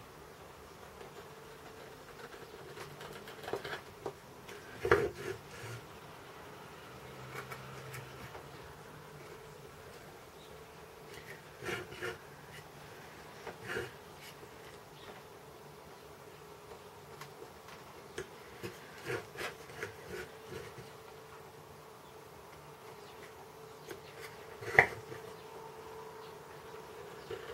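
Carving knife cutting chips from wood: short scraping cuts in scattered groups, the sharpest near the end. A steady faint hum runs underneath.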